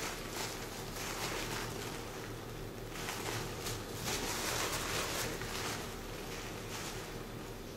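Paper tissue rustling and crinkling in the hands as it is held around a small oil-filled RC shock absorber, louder about three to five seconds in, over a low steady hum.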